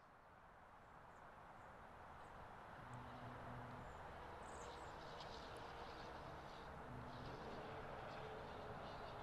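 Low rumble swelling steadily louder, with a faint steady hum coming in about halfway through: a diesel locomotive approaching. A few high bird chirps sound over it.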